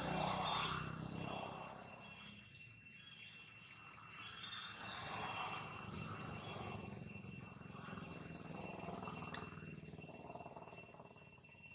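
Steady high-pitched insect drone, holding two constant pitches throughout, over a soft background that swells and fades. A single sharp click sounds about nine seconds in.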